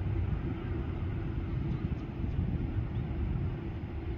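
Boeing 787 jet engines running as the airliner rolls along the runway: a steady low rumble with a faint steady hum.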